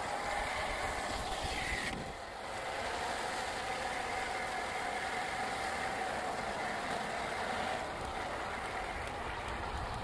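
A 1/10-scale RC crawler's electric motor and geartrain whining steadily as it drives through a muddy puddle, with water splashing and sloshing around its tyres. The sound dips briefly about two seconds in.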